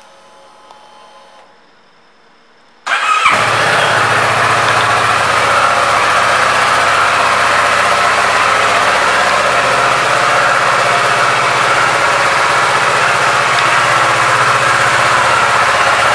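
Kawasaki Ninja 650 parallel-twin engine starting. After about three quiet seconds the starter turns it over briefly, the engine catches, and it settles into a steady idle.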